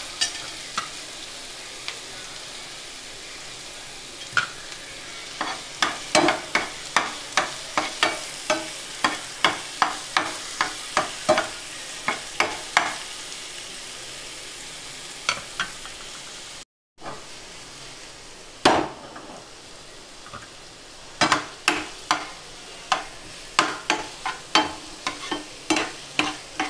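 Onions and chopped tomato sizzling in ghee in a non-stick frying pan while a metal spatula stirs them, knocking and scraping against the pan in runs of about two strokes a second. There is a brief gap just after the middle.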